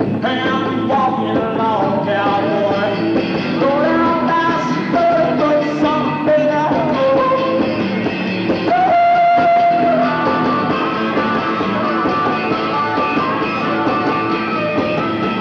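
Live rock music led by a harmonica played into a vocal microphone: sliding, bent notes, with one long held note about nine seconds in.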